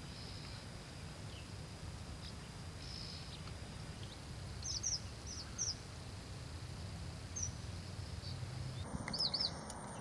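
Red avadavat giving thin, high chirps: a few scattered notes, then a quick run of about four about halfway through, and a few more near the end. A steady low background rumble runs underneath.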